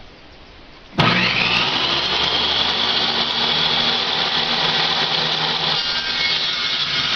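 Bench-mounted circular saw switched on about a second in: its motor spins up with a quickly rising whine, then runs steadily.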